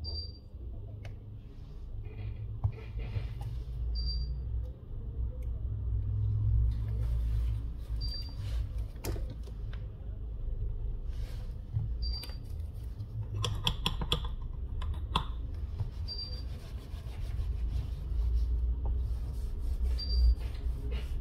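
Hands pressing and rubbing on a Google Pixel 4 XL's glass back cover as it is held down on fresh liquid glue, giving low handling noise with scattered light clicks and a brief cluster of rattling clicks about two thirds of the way through. A short high beep repeats about every four seconds.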